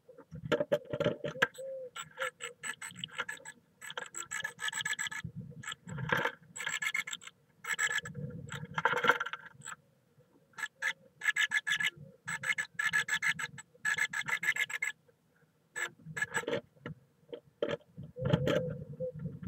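Great tit inside a wooden nest box, scratching and shuffling in the moss nest, heard as bursts of rapid rasping with short pauses between them.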